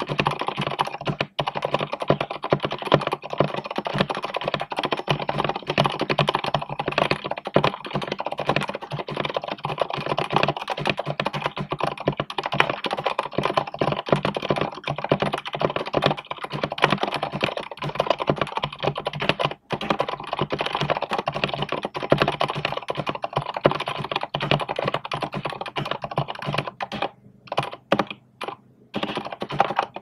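Fast, continuous typing on a custom keyboard with Gateron Silent Brown switches in a wooden case, at about 113 words a minute: a dense patter of damped keystrokes, picked up through an earphone microphone. Near the end the strokes thin out to a few separate clicks and then stop.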